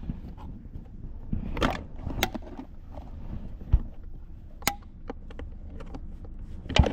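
Scattered clicks and knocks of objects being handled, including a sharp click about two-thirds of the way through and a dull thump a little past halfway, over a low steady rumble.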